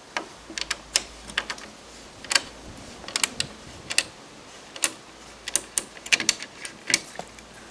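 A clamp-on plastic door-hinge routing template being unclamped and lifted off a door edge, with a string of irregular sharp clicks and knocks.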